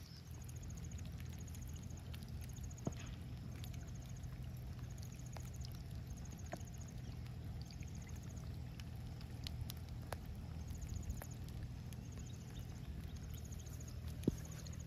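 Riverbank ambience: a steady low rumble with a short high trill repeating about once a second, and a few faint clicks as wire fishing hooks are worked into a piece of raw meat.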